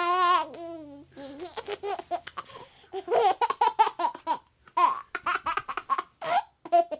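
A baby laughing in runs of short, high-pitched bursts of giggles, opening with a squeal that falls in pitch.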